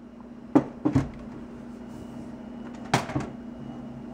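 Several sharp knocks and clunks of hard objects being handled and set down: about half a second in, twice around one second, and once at three seconds. A steady low hum continues underneath.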